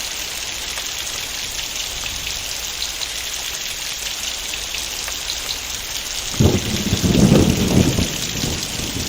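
Heavy rain falling in a steady hiss. About six seconds in, a sudden low rumble of thunder breaks in, swells for about two seconds and fades back under the rain.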